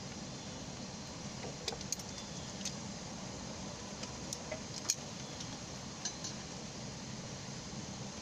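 Steady hiss of falling rain, with a few sharp isolated ticks scattered through it.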